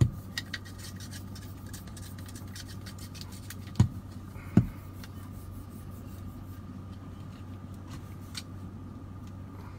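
Hand rubbing toothpaste into a car wiper blade's rubber strip, dry-sanding it smooth: faint scratchy handling ticks over a steady hum, with two louder knocks about four seconds in.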